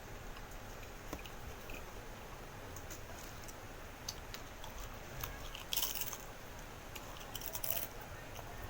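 A person chewing and biting food close to the microphone, with small wet clicks and two brief louder crunches about six and seven and a half seconds in.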